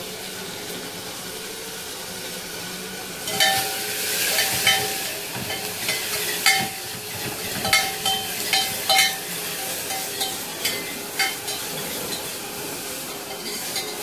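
Tomato and spice masala sizzling in hot oil in a steel pressure cooker. From about three seconds in, the sizzle grows louder and a steel spoon stirs it, clinking and scraping against the side of the pot again and again.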